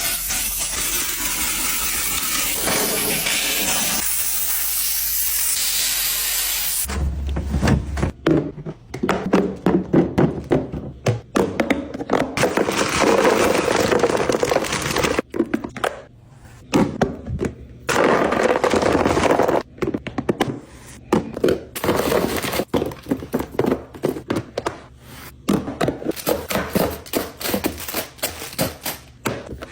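A steady hiss for about the first seven seconds, then irregular knocks, clatters and rustles of food containers and packaging being handled and set down while a fridge is restocked.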